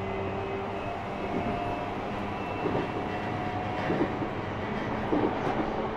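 JR East E235-1000 series electric train running, heard inside a motor car: the whine of its Mitsubishi full-SiC MOSFET VVVF inverter and MT79 traction motors over steady rolling noise. The wheels knock over rail joints a few times.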